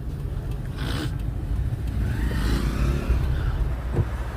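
Car cabin noise while driving: a steady low engine and road rumble, with a short knock near the end.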